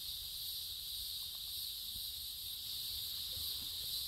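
Steady, high-pitched chorus of insects trilling without a break.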